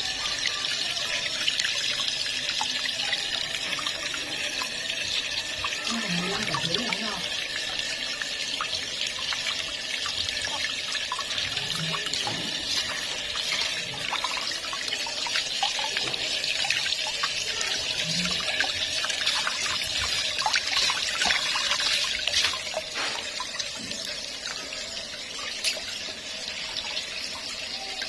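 Running water, a steady rush with fine crackling.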